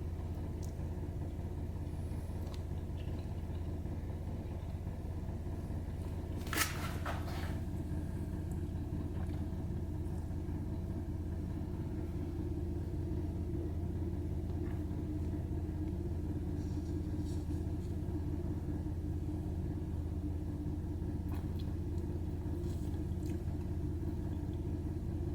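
Steady low hum with a few faint clicks and handling noises; one sharper click about six and a half seconds in.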